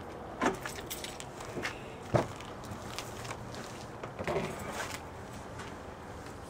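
Footsteps and scattered knocks and thumps, the loudest a single thump about two seconds in, with a short clatter of knocks around four seconds in.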